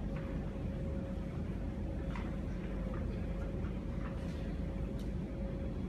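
Steady low room hum with a thin constant tone over it, and a few faint scattered clicks and rustles.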